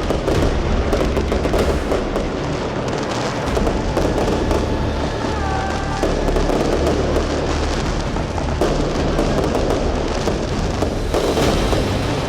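Consumer firework batteries (Lesli Knock Out XXL and Jorge Copernicus cakes) firing shot after shot in a dense, continuous barrage of bangs and crackling. Brief whistling glides come about five seconds in.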